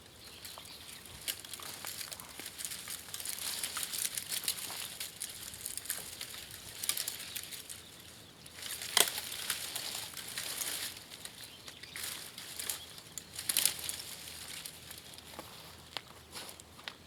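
Small wood campfire burning, crackling and popping irregularly, with a couple of sharper snaps about halfway through and again a few seconds later.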